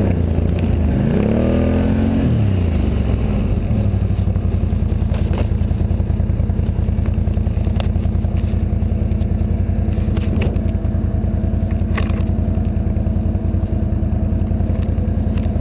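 Engine of a track-equipped Can-Am Outlander 1000 XT ATV, a V-twin, revving up and down for the first few seconds. It then settles into a steady drone while driving over snow. A few sharp clicks come through partway.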